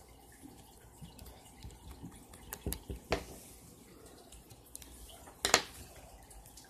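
Soft slime being handled and squeezed in the fingers, making a few small wet clicks and squelches, with a sharper, louder one about five and a half seconds in.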